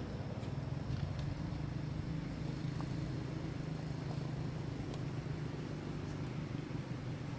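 A motor running steadily: an even low hum, with a few faint high ticks over it.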